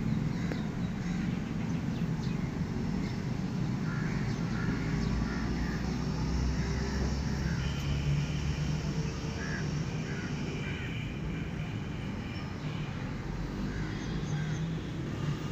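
Outdoor ambience: a steady low rumble with short bird calls, one cluster about four seconds in and another around nine to ten seconds.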